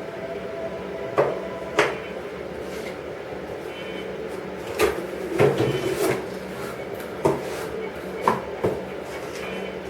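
A series of sharp knocks and clicks at irregular spacing, about eight in all and clustered around the middle, over a steady hum.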